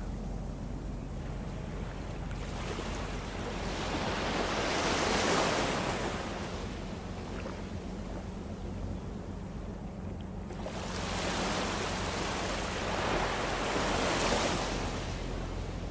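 Small waves washing in on a sandy shore: the surf hiss swells and fades twice, about nine seconds apart, over a low steady rumble.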